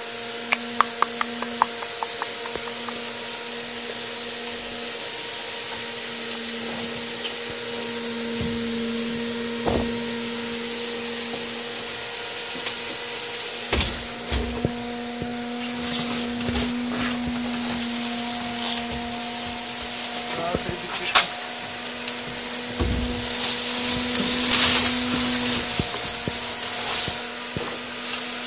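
A steady mechanical hum with overtones runs throughout, with scattered knocks and clicks and a spell of rustling near the end.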